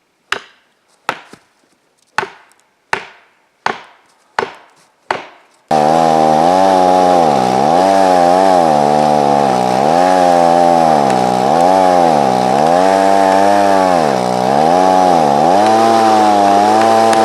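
Seven sharp hammer blows on a felling wedge, about one every 0.7 s. Then a 14-inch chainsaw comes in suddenly at full throttle and cuts through the trunk, its engine note dropping and recovering about once a second as the chain bites under load.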